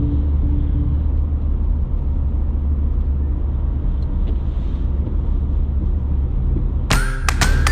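A vehicle driving: a steady low rumble of engine and road noise. Music with drums comes in near the end.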